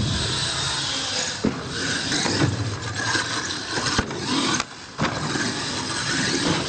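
Radio-controlled monster truck running hard: its motor and tyres make a steady rushing noise on the wet concrete floor. A few sharp knocks come as it lands and bounces after a flip.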